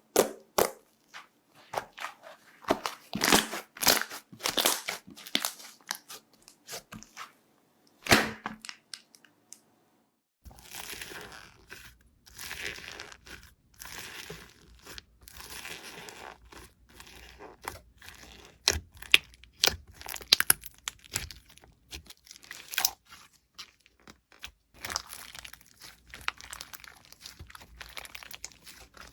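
Slime being squeezed and poked by hand, giving crunchy, crackling and crinkling pops. About nine seconds in there is a short silent gap, after which a faint steady hiss lies under denser crackling.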